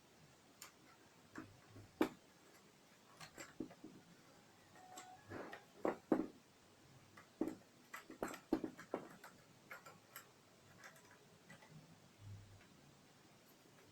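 Irregular light clicks and knocks, a close cluster of them about halfway through.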